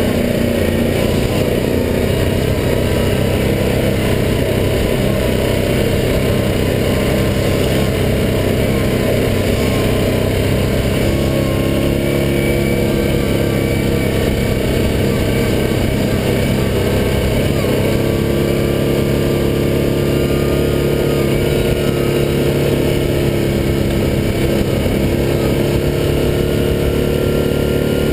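The single-cylinder four-stroke engine of a 2014 Yamaha Grizzly 700 SE ATV running steadily under way, heard from on board. Its note shifts slightly a few times as the speed changes.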